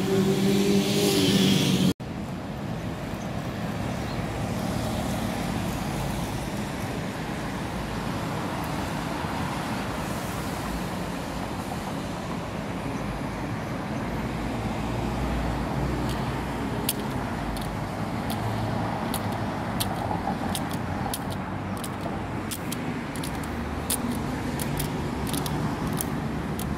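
Steady city traffic noise from cars on a nearby road. For the first two seconds a louder engine with a steady hum sits on top, then stops abruptly; scattered light clicks come in over the second half.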